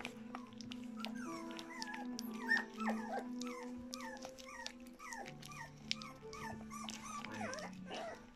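Three-week-old puppies whimpering in a quick series of short, falling squeaks, about two a second, with small wet clicks of a puppy lapping porridge. A steady hum from a television runs underneath.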